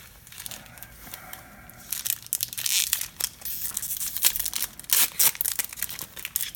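Foil wrapper of a Magic: The Gathering booster pack crinkling and tearing as it is opened, turning into loud, dense crackly rustling about two seconds in.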